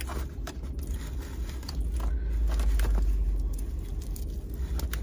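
Close-miked eating sounds, with scattered small clicks and scrapes of biting and chewing, over a steady low rumble that swells about two seconds in.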